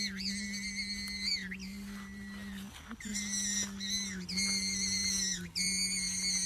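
High whistling tones that hold, dip and break off every second or so, over a steady low hum.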